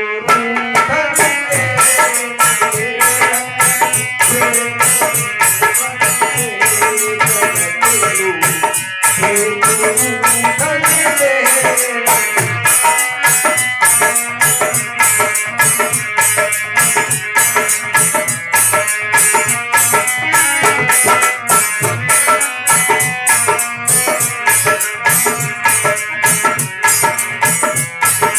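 Dholak drumming in a steady, regular rhythm of about two to three strokes a second, over Indian melodic instrumental music.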